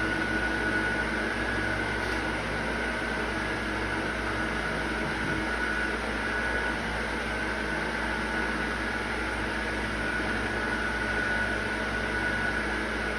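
Steady machine hum: an even hiss with a constant high whine over a low drone, unchanging throughout.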